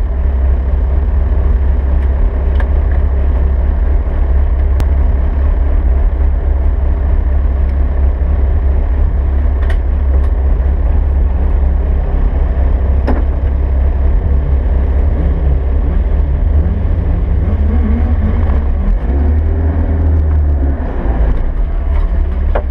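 Rally-prepared Vauxhall Nova's engine idling, heard from inside its cabin: a steady low rumble, with a few faint clicks.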